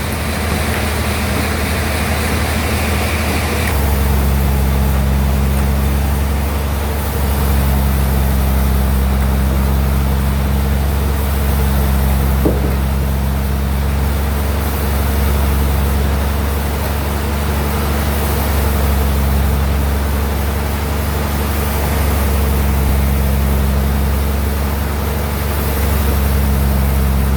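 Sawmill bandsaw running with a steady low hum, its sound changing about four seconds in and then swelling and easing slowly.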